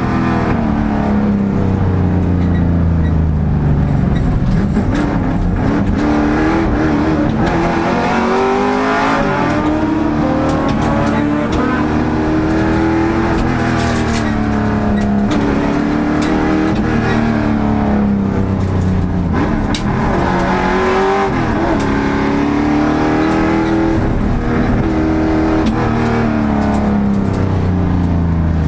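Race car engine heard from inside the cockpit during a race lap, its pitch climbing under acceleration and dropping again, over and over, as the car speeds up and slows for corners.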